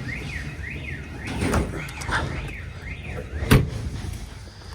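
Workshop alarm sounding: a warbling electronic tone that sweeps up and down about twice a second. A sharp knock about three and a half seconds in.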